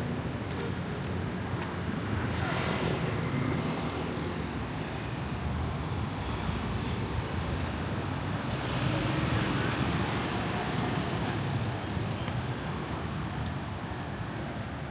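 Road traffic running steadily, with vehicles passing and swelling louder about two seconds in and again around nine seconds in.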